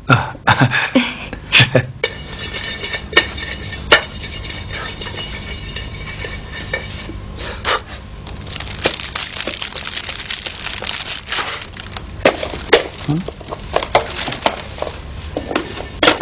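Scattered knocks and light clattering over a steady hiss.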